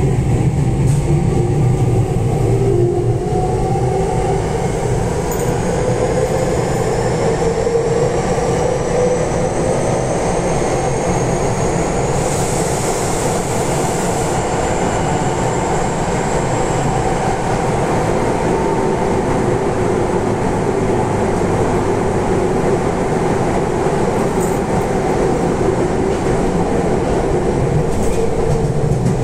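Cabin running noise of a Saitama Railway 2000 series subway train underway in a tunnel. A motor whine climbs in pitch over the first several seconds as the train accelerates, then holds steady over a continuous rumble of wheels on rail.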